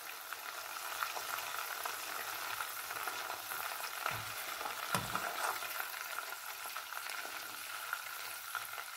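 Hot oil in a deep pot frying with a steady sizzle as whole green chillies are lifted out with metal tongs. Two soft knocks come a little past halfway, about a second apart.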